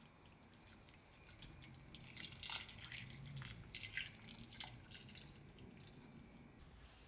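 Faint small splashes and drips of water in a run of short, irregular ticks, busiest a couple of seconds in, as when food is rinsed in a sink.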